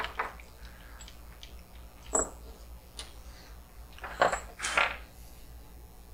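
Small metal tools and parts clinking as they are handled and set down on a workbench: a clink at the start, another about two seconds in, and two more close together around four to five seconds in, each with a short metallic ring.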